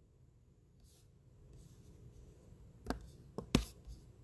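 A few sharp computer mouse clicks close together about three seconds in, the third the loudest, over faint low room noise: the button presses that re-randomize a list on a web page.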